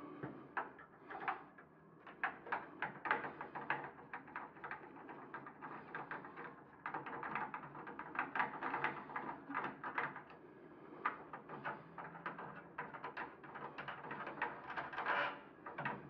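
A threaded metal rod poked and worked inside a drilled-out door lock: a quick, irregular run of metallic clicks and scrapes.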